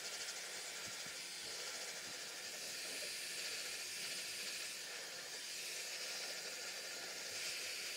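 Head Kandy Travelista portable hair dryer running steadily, a high, airy hiss of blowing air as it dries damp hair.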